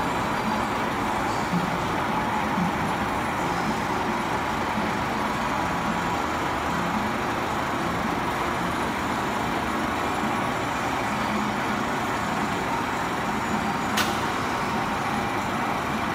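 Howa Strong2000 engine lathe test-running: a steady, even mechanical whir from the headstock and feed drive, with a faint steady whine over it and one sharp click near the end.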